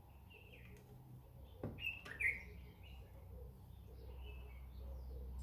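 Small birds chirping on and off, with one louder chirp a little over two seconds in. A short knock comes just before it, and a low rumble sits underneath and grows toward the end.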